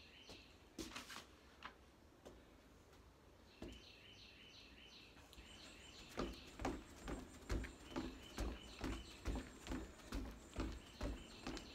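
A small bird chirping in short repeated trills, then from about halfway a steady rhythm of footfalls on a wooden deck, about two a second, from knee ups and butt kicks done in place.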